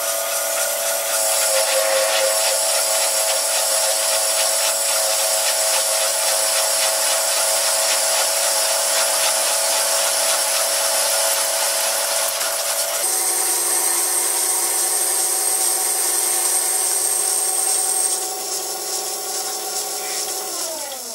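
Vintage Karger metal lathe taking a facing cut across a steel blank with a cheap carbide insert: a steady whine from the motor and gears under a harsh scraping cutting noise. The insert is wearing out on this cut, and the owner says he killed it. The whine shifts pitch about two-thirds through, and near the end the lathe is switched off and winds down.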